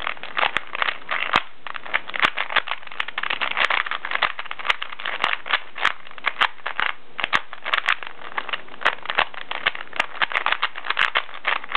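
A plastic Rubik's Cube being turned by hand: quick, irregular runs of clicking and rattling as its layers are twisted during a solve.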